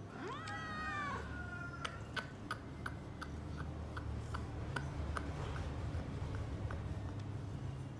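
A domestic cat meows once, a call that rises and then falls, in the first two seconds. A run of short high ticks follows at about three a second for several seconds.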